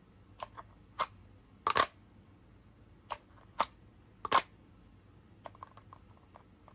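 Sharp plastic clicks of a pistol being drawn from and pushed back into a Kydex inside-the-waistband holster as it snaps in and out of its retention. There are about seven clicks in the first four and a half seconds, the loudest near two seconds in and again near four and a half, then a few faint ticks.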